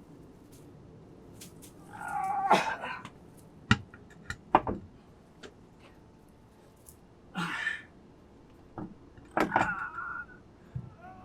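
A man groaning and straining with effort in three drawn-out bouts while heaving a heavy Land Cruiser wheel onto the hub, with a few sharp clunks of the wheel knocking against the hub between them.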